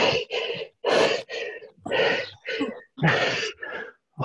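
A person panting hard from exertion: loud, breathy puffs about two a second, each cut to dead silence by the video-call audio.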